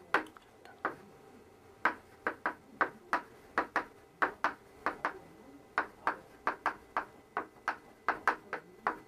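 Chalk striking a chalkboard in an irregular run of short, sharp taps, a few a second, as tick marks and small labels are chalked along a line.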